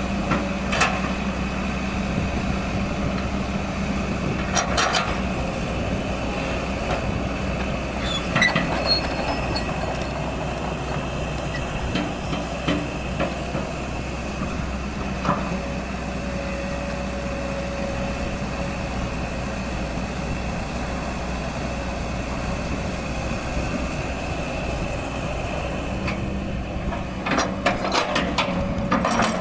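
Kobelco SK200 excavator's diesel engine running steadily, with occasional sharp knocks and clanks and a cluster of them near the end.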